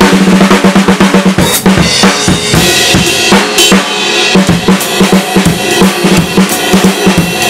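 Drum kit played with wooden sticks: a fast run of snare and tom strokes, then cymbals join over the beat about a second and a half in, with the bass drum and snare carrying on.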